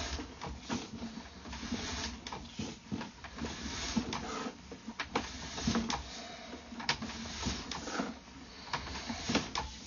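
Sewer inspection camera's push cable being pulled back out of the line: irregular clicks and rattles, several a second, over a low steady hum.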